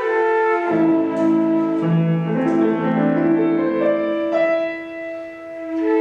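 Instrumental ensemble music: a piano passage of lower chords, between held melody notes played by a flute-like wind instrument, which comes back in near the end.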